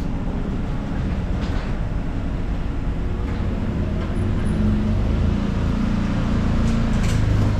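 Can-Am Defender side-by-side running as it drives slowly in toward the listener, its engine rumble growing louder from about halfway through as it approaches.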